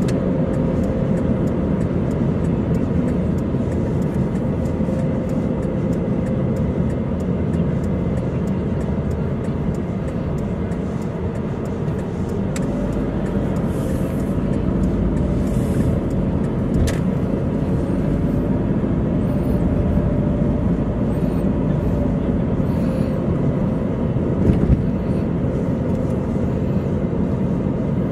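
Steady engine and tyre rumble of a car driving on the road, heard from inside the cabin, with a faint wavering whine over it.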